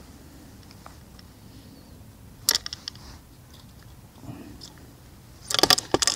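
Hands unhooking a small carp in a mesh landing net: quiet handling with a single sharp tap about two and a half seconds in and a quick run of clicks and taps near the end.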